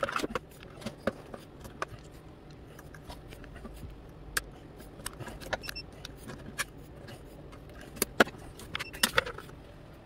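Irregular light clicks and metallic taps of a small screwdriver, screws and motor being fitted into a wooden RC boat hull, with a few sharper clicks near the end.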